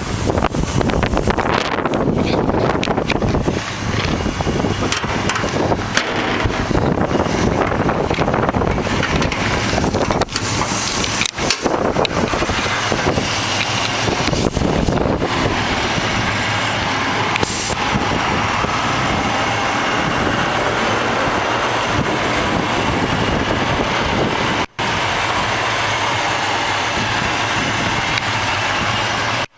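Cadillac 500 cubic-inch V8 running in a 1958 Chevrolet Apache pickup, loud and continuous. It is uneven for the first half and settles to a steadier note, with a brief break about 25 seconds in.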